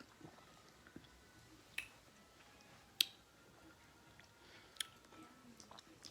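Quiet chewing with three sharp mouth clicks or lip smacks, the loudest about three seconds in.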